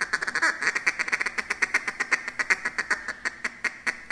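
Duck call blown in a basic feed call: a fast, even chatter of short quacking notes, about ten a second. This is the call used to imitate ducks feeding.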